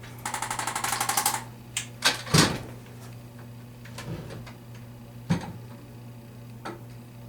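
Arthrostim chiropractic adjusting instrument firing a rapid run of taps, about a dozen a second, for roughly a second, then a few separate clicks and knocks, the loudest about two seconds in.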